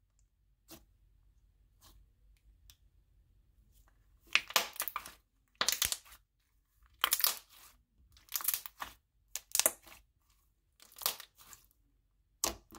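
Thick white slime being pressed, stretched and poked with the fingers, giving short squishing, crackling bursts about once every second or so, starting about four seconds in.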